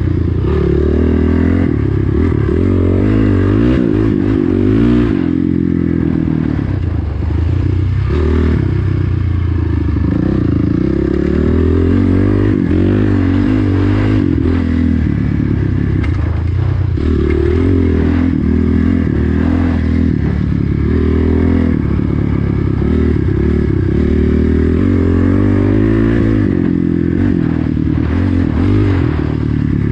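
Honda dirt bike engine being ridden along a trail, its note rising and falling over and over with the throttle. It eases off briefly about seven seconds in. Short knocks and rattles come from the bike over the bumpy ground.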